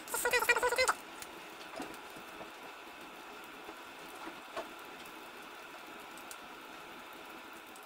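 Breaded stuffed potato balls deep-frying in a saucepan of hot oil, a steady sizzle with faint scattered crackles. A short high-pitched cry sounds over it in the first second.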